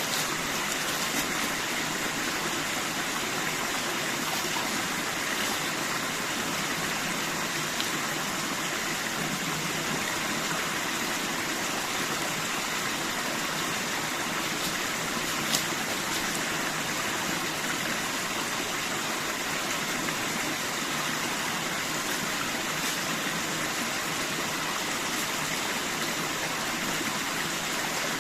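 Steady rush of flowing stream water, even and unbroken, with one faint tick about halfway through.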